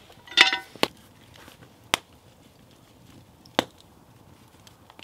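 Metal cookware being handled: a ringing metallic clank about half a second in, then three sharp taps of metal on metal.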